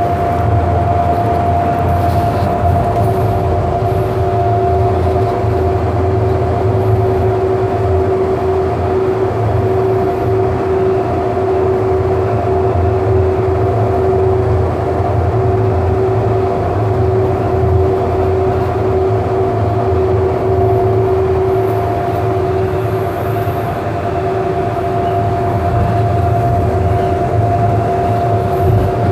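Siemens S200 light rail car heard from on board, running between stations: a steady low rumble with a constant two-note whine, the pitch unchanging at a steady speed.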